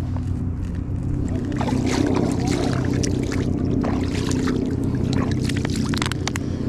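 Hands splashing and sloshing in shallow lake water at a concrete edge, a rapid run of small splashes between about a second and a half and six seconds in, over a steady low rumble.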